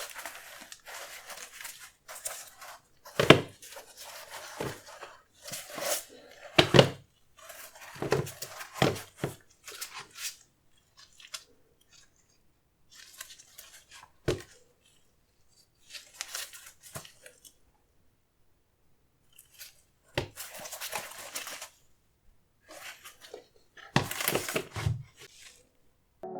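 Packaging paper being handled in irregular bursts of rustling and crinkling, with several sharp knocks and short pauses between.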